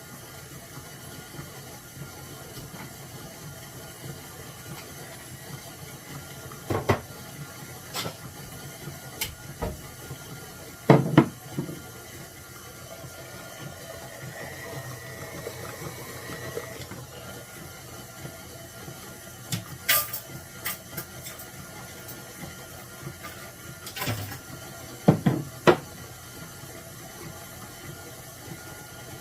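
Electric mixer running steadily on low speed, churning cultured sour cream into butter. Several sharp knocks come through it, loudest about 11 seconds in and again around 20 and 25 seconds.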